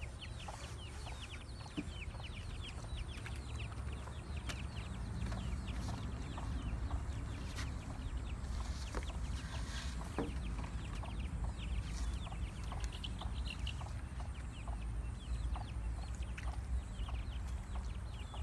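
Birds chirping in a dense, continuous chorus of short, high, falling chirps, over a steady low rumble.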